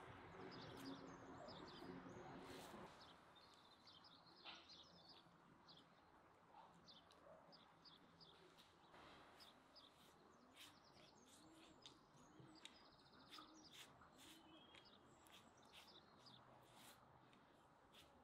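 Faint birdsong: small birds give many short, high chirps scattered throughout. A low steady tone runs under them for the first three seconds, then stops.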